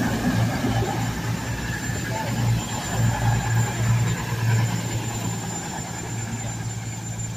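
CrossCountry Voyager diesel multiple unit moving slowly past, its underfloor diesel engines giving a steady low hum that pulses slightly and eases off near the end.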